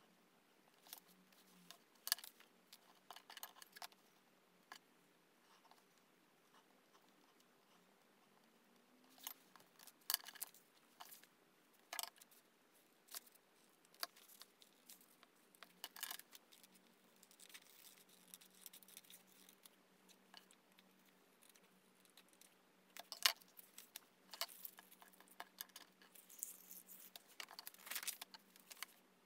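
Quiet paper-crafting sounds: scissors snipping through folded paper, paper rustling as it is handled, and scattered light clicks and taps, busiest near the end.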